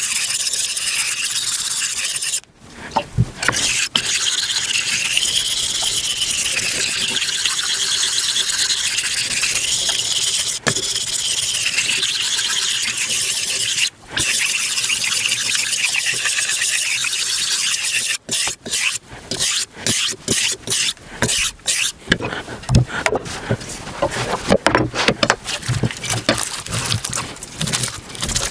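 Steel kitchen knife blade being sharpened on a combination whetstone: a long, steady rasping scrape of steel on stone, broken briefly twice. From about 18 s on it gives way to quick, separate knife strokes slicing an onion and knocking on a wooden cutting board.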